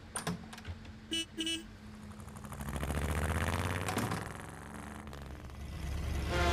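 Car sound effect: two short horn toots, then an engine and tyre rumble that swells as the car pulls away and fades off. Music comes in near the end.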